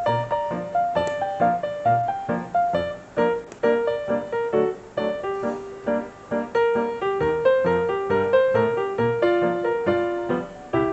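Background piano music with a steady beat.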